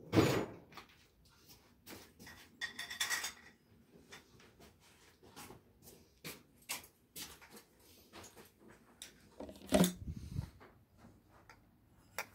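Handling noise from a covered camera: scattered clicks, knocks and rustles, with a louder thump right at the start and another near the end.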